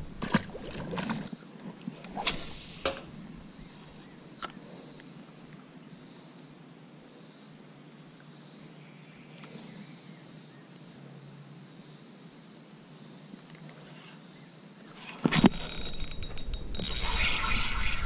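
A few light knocks of fishing tackle on a bass boat, then a long quiet stretch of faint outdoor hiss. Near the end comes a sudden thump, followed by louder scraping and rattling as a hooked bass is fought on a spinning rod.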